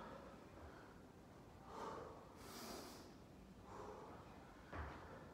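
Faint breathing of a person straining through an exercise: about four breaths in and out, roughly one a second, the sharpest near the end.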